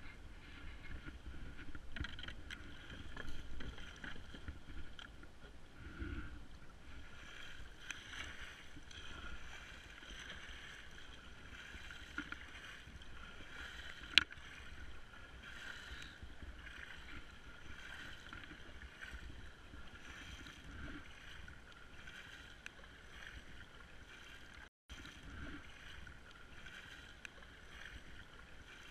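Kayak paddling: paddle blades dipping and splashing in the water with a low rumble underneath. A single sharp click comes about halfway through.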